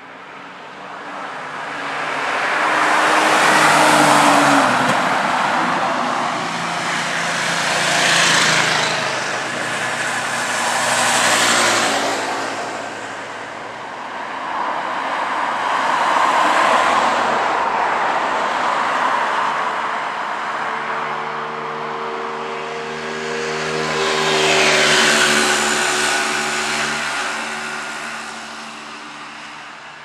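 Cars driving past one after another, among them a Jaguar E-type V12 accelerating by. The engine sound swells and fades about five times as each car approaches and goes away.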